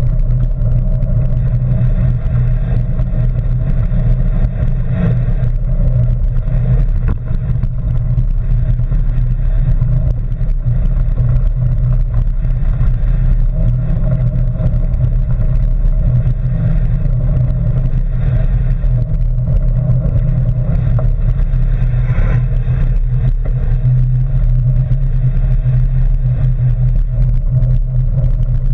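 Mountain bike rolling steadily along a gravel path, the tyre and frame vibration coming through the camera as a loud, continuous low rumble.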